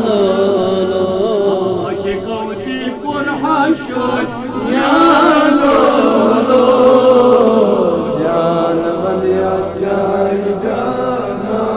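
Kashmiri naat shareef being chanted: devotional singing in long, held, wavering melodic lines, which swell fuller about five seconds in.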